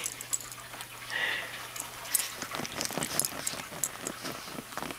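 German Shepherd mouthing and nuzzling a Chihuahua puppy on a fabric loveseat: soft scuffling with a run of quick clicks and smacks, growing busier after a couple of seconds, and one short breathy sound about a second in.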